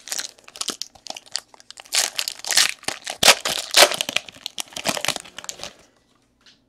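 Trading cards rustling and sliding against one another as a stack is flipped through by hand, a run of quick swishes and rubs that stops about six seconds in.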